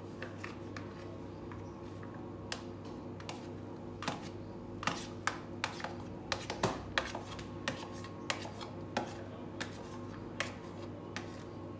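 A wooden utensil tapping and scraping on a plastic tray as chopped tomato is pushed off it into a glass bowl: a string of short, sharp, irregular clicks, sparse at first and more frequent after a few seconds. A steady low hum runs underneath.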